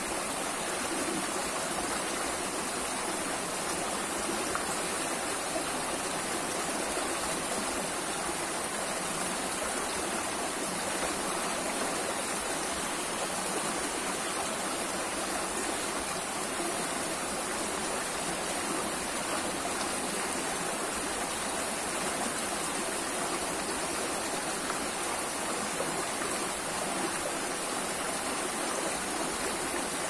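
Shallow rocky stream running over stones and small rapids: a steady rush of water.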